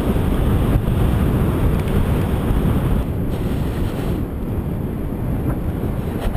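Storm-force wind buffeting the microphone in a steady low rumble, with the wash of heavy surf breaking on rocks beneath it; the wind eases a little about halfway through.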